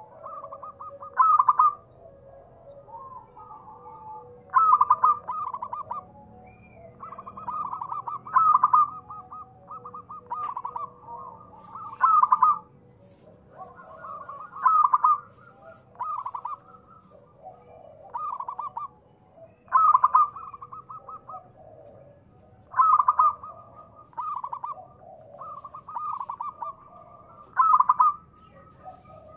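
Zebra dove (perkutut) cooing over and over, about ten calls in all, one every three seconds or so. Each call is a second or so of quick stuttering notes held near one pitch, with a loud peak in it.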